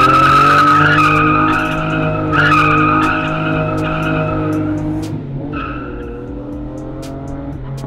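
Jaguar E-Type roadster doing a burnout: the rear tyres squeal over the engine held at high revs. The squeal fades out about five seconds in, and the engine note grows fainter as the car pulls away.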